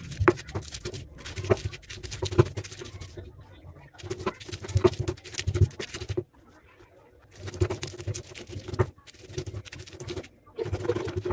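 Stone pestle grinding and crushing green chillies and salt in a stone mortar: rhythmic rubbing strokes with sharp knocks of stone on stone. The strokes stop briefly three times.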